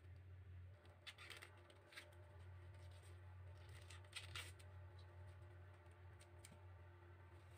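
Faint papery rustling and tearing of corn husk and silk being stripped by hand from an ear of white corn, in a few short strokes about a second in, at two seconds and around four seconds, over a faint steady low hum.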